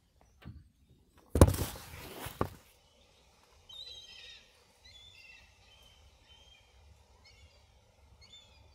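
Loud rustling and rubbing of a phone's microphone as the phone is handled, lasting about a second, then small birds chirping again and again, in short high calls.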